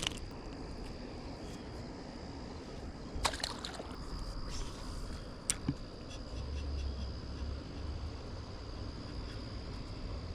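A steady, thin, high-pitched insect chirring outdoors, with a low rumble underneath and a few short clicks or knocks around the middle.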